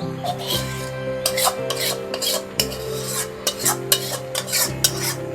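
A spoon clinking and scraping repeatedly against a cooking pot as chicken pieces are spooned into rice, over soft background music.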